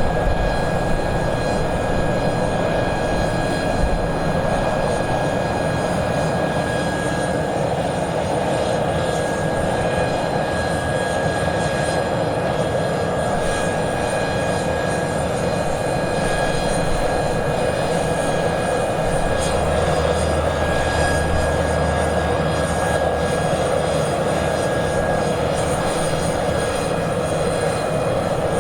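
Airbus A400M's four TP400 turboprop engines running steadily: a constant high whine over a dense, even engine noise. A deeper hum swells for several seconds about two-thirds of the way through.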